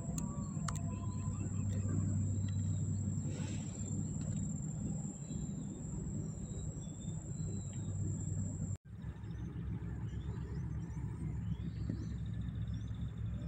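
A steady low motor-like rumble, with scattered small bird chirps and a thin high steady whine over it; the sound drops out for an instant about two-thirds of the way through.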